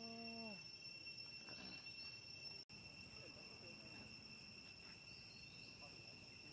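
Faint, steady insect drone with two high held tones. Right at the start comes a short low call, level and then dropping in pitch.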